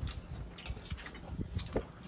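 Light clicks and clinks of spoons on plates and bowls as several people eat at a shared table, a few short ticks scattered through.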